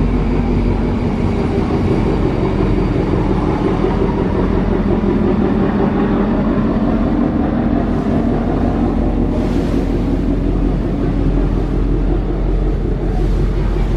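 Diesel engines of a large multi-deck river passenger launch running steadily as it passes close by, a loud drone with a low hum, mixed with the rushing of the water churned up along its hull, which swells about two-thirds of the way through and again near the end.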